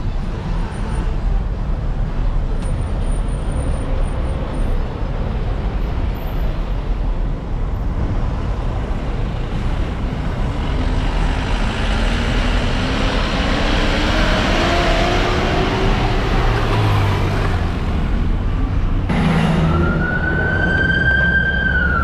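Taxi interior and road noise: a steady low engine and tyre rumble, with the engine pitch climbing as the car speeds up about halfway through. Near the end a long high wail sets in, rising and then starting to fall, like a siren.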